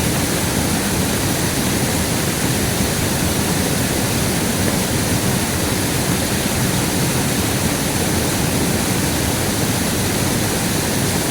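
River water rushing steadily, a constant even noise with no change in level.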